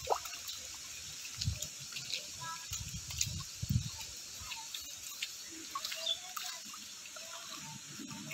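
Live fish flapping and splashing in shallow muddy water and a cast net as they are picked out by hand: scattered wet slaps and clicks, with a few dull thumps in the first four seconds, over a steady high hiss.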